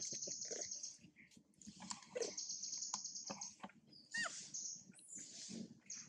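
Long-tailed macaques with nursing infants: a short, bending high squeak about 4 seconds in and a few brief lower calls, over a rapid high-pitched rattling trill heard in two stretches, at the start and again around two to three and a half seconds in.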